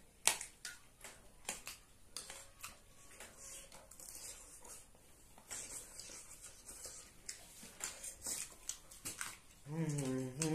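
Eating sounds of spicy instant noodles: chewing and slurping, with many short clicks of spoons and forks against the plates. Near the end a voice starts a drawn-out sound.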